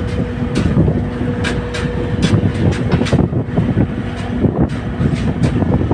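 Fishing vessel's engine running with a steady drone, under wind buffeting the microphone and irregular knocks.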